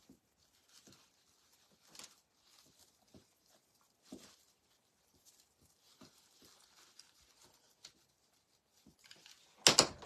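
Faint rustling and small clicks of dry moss and a wiry pip berry vine being handled and wrapped, then near the end a sudden sharp clatter as a pair of scissors falls.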